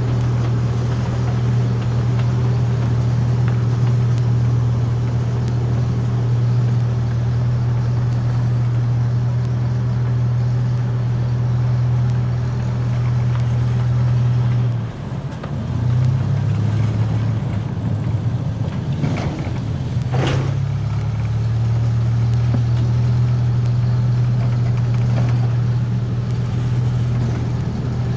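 Miniature ride-on train's engine running steadily with a low hum as the train travels. The engine note dips and wavers briefly about halfway through, and there is a short sharp click about two-thirds in.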